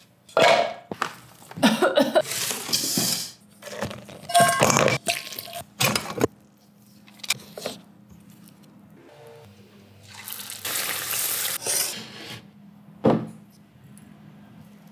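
Kitchen work sounds: quick knocks and clatter of utensils against a stainless steel bowl of batter, then a steady hiss for about two seconds, the sizzle of battered sweet potato slices frying in oil, and one sharp clatter near the end.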